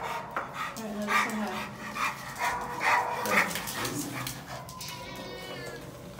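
Excited dog making short yips and whimpers on a leash, with a higher, wavering whine near the end.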